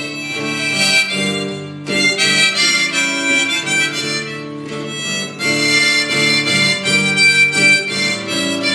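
Harmonica playing a melody over a strummed acoustic guitar in an instrumental break between verses of a song, the harmonica phrases pausing briefly about two seconds in and again past the middle.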